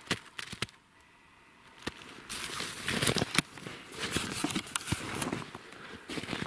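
Footsteps crunching through a thin layer of snow over dry fallen leaves, irregular and uneven, with a short lull about a second in before the steps pick up again.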